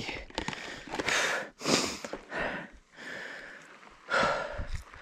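A mountain biker breathing hard, with a few loud breaths close to the microphone about one, two and four seconds in.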